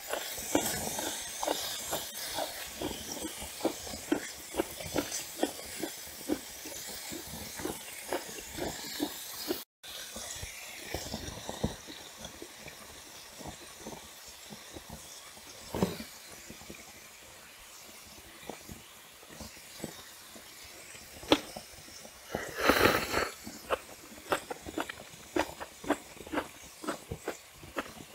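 Close-miked mukbang eating: steady chewing with many small wet clicks and smacks as mouthfuls of bibim naengmyeon noodles and grilled brisket are eaten. Near the end comes a louder, breathy sound about a second long, like a slurp or a sharp breath.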